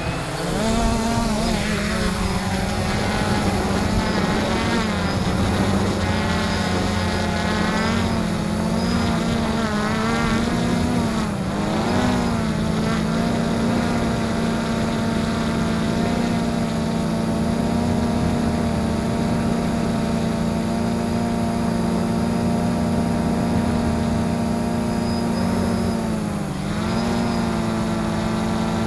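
XK Detect X380 quadcopter's four brushless motors and propellers spinning up at take-off and then buzzing continuously in flight, heard close from the onboard camera. The pitch wavers up and down with throttle changes for about the first twelve seconds, then holds steady, with a brief dip near the end.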